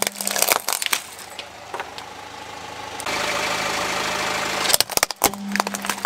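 A car tyre crushing toy vehicles: a quick run of sharp cracks and crunches in the first second as a toy Volkswagen bus is flattened, then a steady engine hum. About five seconds in comes another burst of cracking and snapping as a plastic toy fire truck gives way under the wheel.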